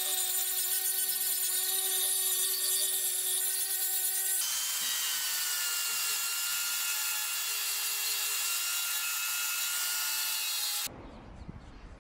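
Electric angle grinder with a flap disc grinding down welds on a steel shovel blade: a steady motor whine over a hissing grind. The sound shifts about four seconds in, with the whine drifting slightly lower, and cuts off abruptly near the end.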